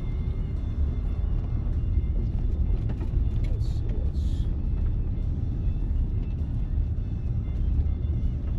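Steady low road rumble of a car driving, heard from inside the cabin, with a couple of brief hisses about four seconds in.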